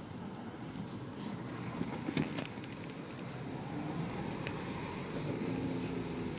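Car moving slowly in traffic in light rain, heard from inside the cabin: a steady low road and engine noise, with a few short ticks around two seconds in.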